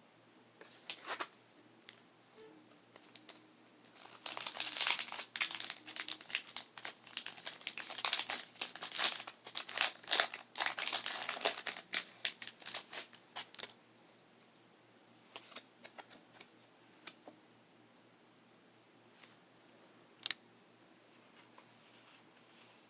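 Foil wrapper of a Pokémon card booster pack crinkling and tearing as it is opened by hand: a dense run of crackles for about ten seconds in the middle, with a few scattered light crackles and clicks before and after.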